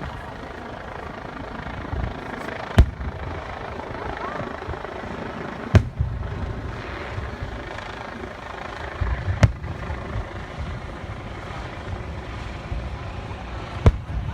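Aerial fireworks shells bursting, four sharp booms a few seconds apart, over a continuous low rumble.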